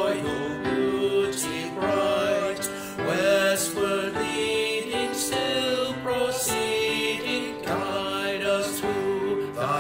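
Three men's voices singing a hymn together in harmony, holding long notes with vibrato and moving to a new note every second or so.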